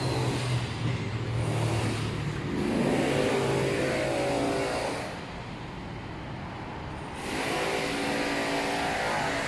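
Mitsubishi Mirage G4's engine and CVT pulling away twice, the pitch rising as it speeds up, over a steady low hum.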